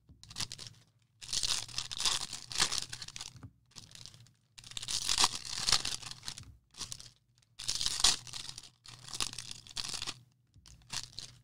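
Baseball card pack wrappers being torn open and crinkled by hand, in several bursts a second or two long with short pauses between, over a faint steady low hum.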